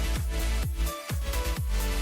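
Electronic dance music with a steady kick drum, a little over two beats a second, under sustained synth notes.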